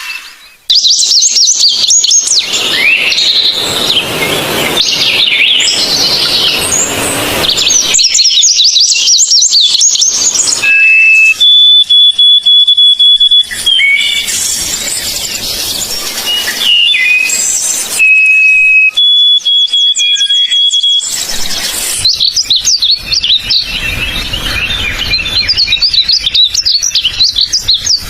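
Songbirds chirping and singing, with fast high twittering and trills, in recordings that change abruptly every few seconds. Between them come long, steady whistled notes, each held for about two seconds.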